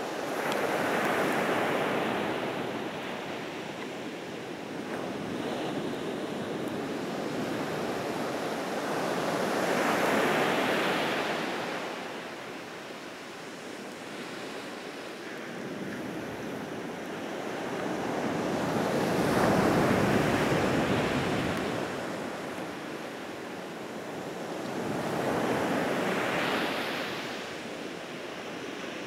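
Atlantic surf breaking on a sandy beach: a wash of noise that swells and fades four times as the waves come in and run back.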